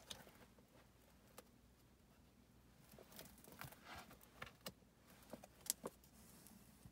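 Near silence with scattered faint clicks and light handling rustles, as someone rummages for something to use.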